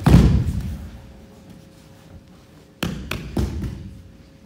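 Judo throws landing on tatami mats: a loud thud as a thrown partner hits the mat in a breakfall after an uki goshi hip throw, echoing in the hall, then three more quick thuds about three seconds in as the other pair lands and settles into the hold-down.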